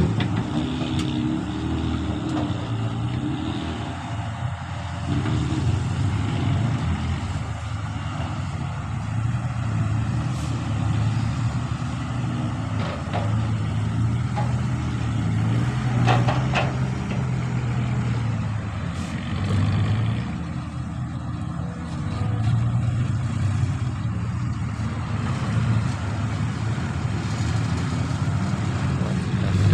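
Heavy diesel engine of an excavator running steadily, its low hum rising and falling a little with the load, with a few short metallic clanks along the way.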